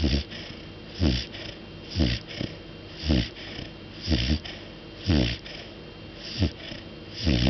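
Golden retriever snoring, with short snores about once a second, each one falling in pitch.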